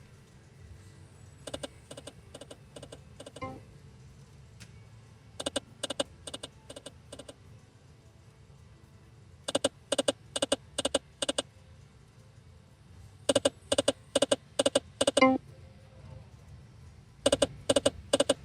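Jungle Wild video slot machine spinning again and again. Each spin ends in a quick run of five to seven click-like reel-stop sounds, with a new run about every four seconds.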